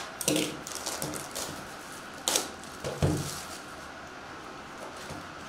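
A shrink-wrapped cardboard box of trading cards being handled and turned over on a table: rustling of plastic wrap and cardboard, with a few sharp knocks and a dull thump about three seconds in.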